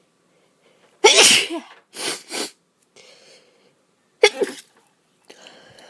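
A woman sneezing twice, about three seconds apart, each a sudden loud burst.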